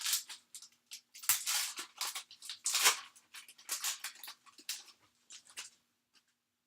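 A foil trading-card pack being torn open and crinkled: a run of sharp crackling rustles that stops about six seconds in.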